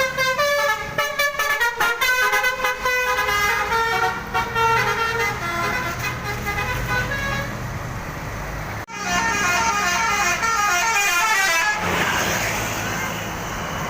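Indonesian bus 'telolet' basuri multi-tone air horn playing a quick tune of stepping notes over the bus engine's low running. The tune breaks off abruptly near nine seconds, and a second horn melody with fast rising and falling runs follows.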